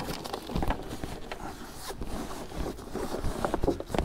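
Marex 330's canvas cockpit canopy and its clear vinyl window panel rustling and scraping as they are pulled back along the track, with scattered small clicks.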